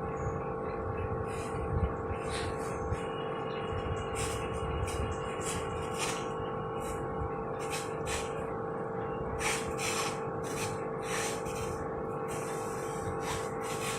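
Irregular short rubbing and rustling of cloth and canvas being handled while glue is spread on them, over a steady background hum.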